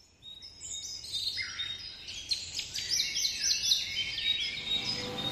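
A chorus of birds chirping: many short, overlapping calls, several with quick downward sweeps. It fades in within the first half second and is busiest around the middle.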